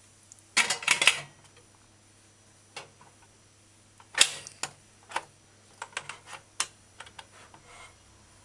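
Stainless steel T-fal pressure cooker lid being fitted onto the pot: a clatter of metal clicks and scrapes about half a second in, then one sharp click about four seconds in as the lid is pressed down and clamped shut, followed by lighter clicks and taps.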